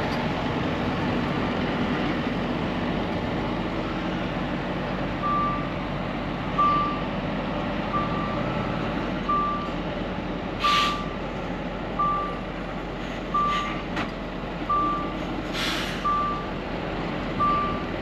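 Volvo FH540 truck's diesel engine running, heard inside the cab, while a reversing alarm beeps about every second and a bit, ten steady beeps starting about five seconds in. Two short bursts of air hiss from the truck's air brakes come in the second half.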